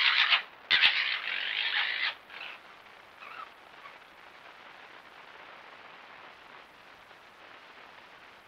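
Red foxes gekkering during a play-fight, a loud, harsh rasping chatter for about two seconds with a brief break, then one faint call about three seconds in. After that only the low hiss of the trail camera's microphone remains.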